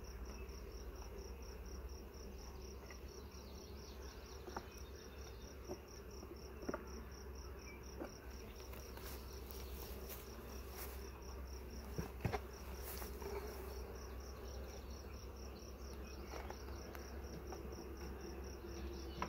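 Honey bees buzzing faintly around an open nucleus hive, with a few light wooden knocks, the clearest about twelve seconds in, as frames and a hive box are handled. A fast, even, high-pitched pulsing runs underneath.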